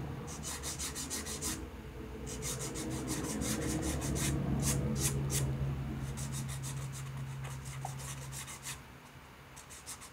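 A fine sanding sponge rubbed in quick, short strokes along the edges of a dried, unfired silver-clay pendant (greenware), making a soft dry scratching in runs with brief pauses. This is the smoothing of the edges before firing.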